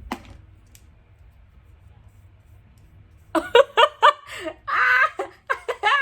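A single sharp click, then from about three seconds in a woman's voice in a run of short, choppy bursts with no clear words.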